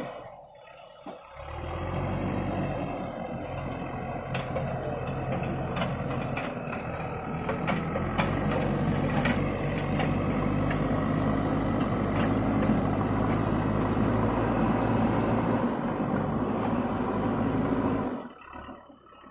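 JCB backhoe loader's diesel engine running under load, starting about a second in and carrying on steadily, with a few sharp knocks over it in the first half; it drops away briefly near the end.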